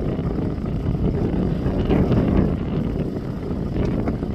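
Wind buffeting the microphone: a steady, loud, uneven low rumble.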